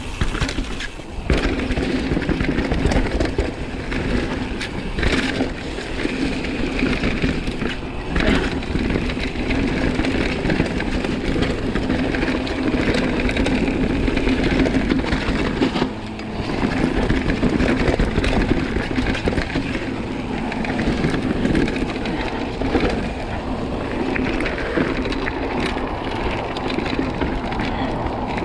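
Mountain bike riding fast down a rough dirt and stone trail: tyres rumbling over the ground and the bike clattering and knocking over bumps.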